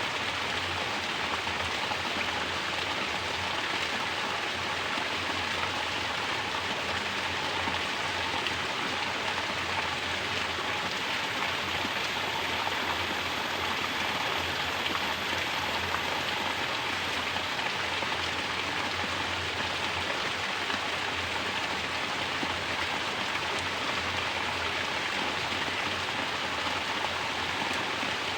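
Mountain water falling in a natural shower and splashing onto the surface below: a steady, even splashing hiss that does not change.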